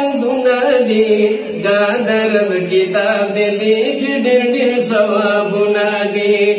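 Men singing a Pashto naat, a devotional chant, unaccompanied and amplified through a handheld microphone, in long held melodic lines that glide between notes.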